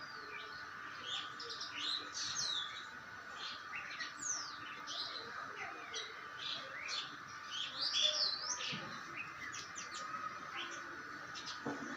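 Common myna (shalik) calling: a busy run of varied whistles, chirps and rising and falling gliding notes, over a steady background hum.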